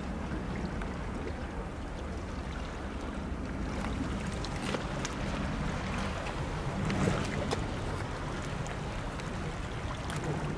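Sea water lapping along a rocky shore, with wind on the microphone. From about four seconds in come many small, sharp splashes of water among the rocks.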